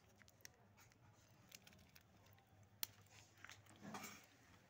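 Near silence, broken by faint scattered small clicks and one sharper tick about three seconds in. A voice murmurs faintly near the end.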